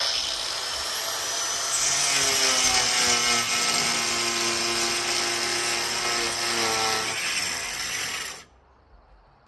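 Angle grinder with a 4-inch diamond tile blade cutting cement backer board: the motor starts abruptly and runs under load with a whine and a loud grinding hiss for about eight seconds, then stops suddenly.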